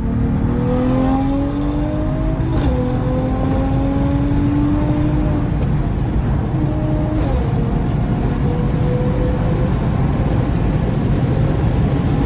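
Mercedes-AMG GT53's turbocharged 3.0-litre inline-six, heard from inside the cabin, pulling hard under acceleration. The engine note rises, then drops at two upshifts, about two and a half and seven seconds in, each marked by a short crack. Steady road rumble runs underneath.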